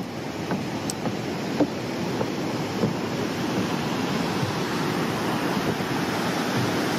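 Steady rush of waterfall and river rapids in a rocky gorge, growing slightly louder. In the first few seconds there are a few light footsteps on wooden stairs.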